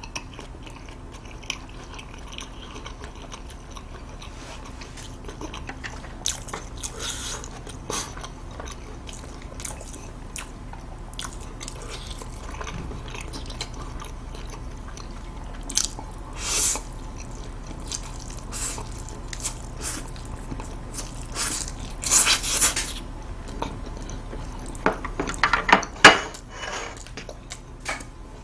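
Close-miked chewing of fried instant noodles, wet mouth sounds with scattered small clicks and a few louder bursts. A cluster of louder sharp sounds comes near the end.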